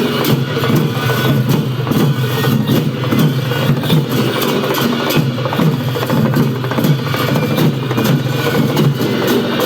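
Traditional Newar percussion ensemble accompanying the Bhairab masked dance, its drums playing a fast, dense, unbroken beat.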